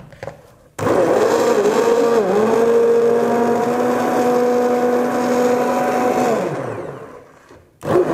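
Hand-held immersion blender running steadily as it purées cooked pumpkin soup in a pot. It starts about a second in, its pitch dips briefly once, and it winds down with a falling pitch and stops near the end. It starts again just before the end.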